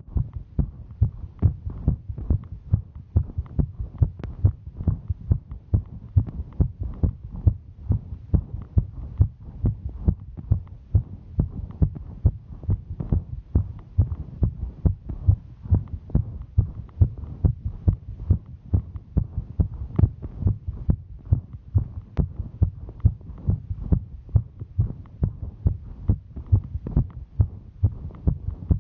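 A woman's heartbeat recorded close up: a steady, fast run of low thumps, her heart rate raised by the exertion of hiking.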